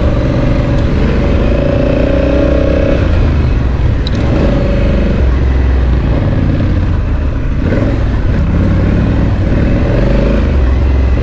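Honda Africa Twin's parallel-twin engine running steadily on a dirt trail ride. Its pitch shifts a few times as the throttle is opened and eased.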